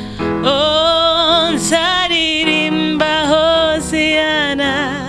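A woman singing a gospel worship song in long held notes with vibrato, over sustained electronic keyboard chords.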